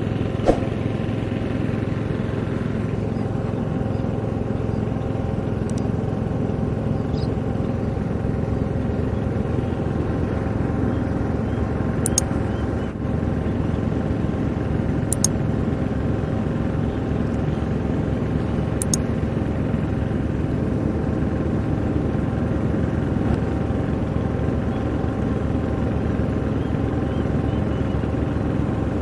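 Maxxi Bimo NDR102L combine harvester's engine running steadily with its machinery droning, with a few sharp clicks from the machine now and then.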